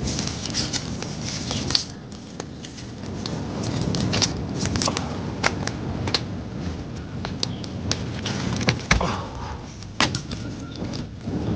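Open fire burning strongly in a pit: a steady low rush of flame with frequent sharp crackles and pops, a few louder pops past the middle.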